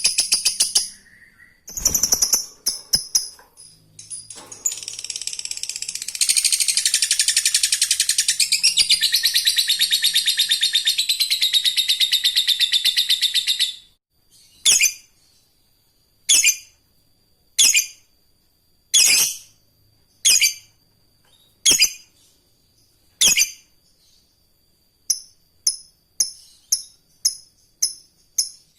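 Lovebird ngekek: a long, rapid, high-pitched chattering trill held for about nine seconds. It then breaks into single sharp calls about every second and a half, which come quicker near the end.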